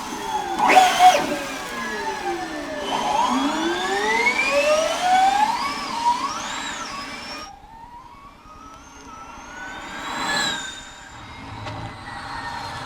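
Formula E electric race cars running: a high electric motor whine with several pitches gliding up and down as the cars accelerate and brake, with quick pass-bys about a second in and again near ten seconds. The sound cuts off abruptly about halfway through and picks up again with another car.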